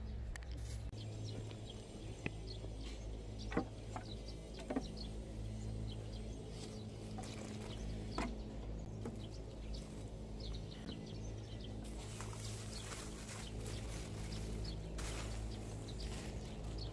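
Small birds chirping in short scattered calls over a steady low outdoor rumble, with a few soft knocks from garden work. A high hiss comes in during the last few seconds.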